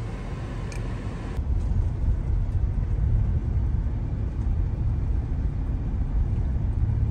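Low, steady rumble of road and engine noise inside a car's cabin as it rolls along an unpaved road, growing louder about a second and a half in.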